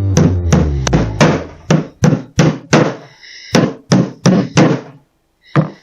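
Hammer blows driving a nail into a plywood drawer box, a steady run of about three strikes a second, then a pause and one last blow near the end. Background music fades out in the first second or two.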